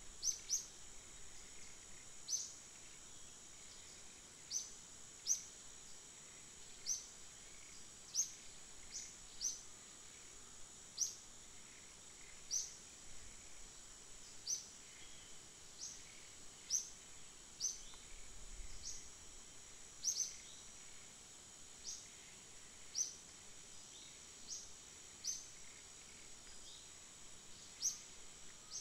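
Outdoor insect drone, a steady high-pitched hum, with short sharp high chirps repeating every second or two.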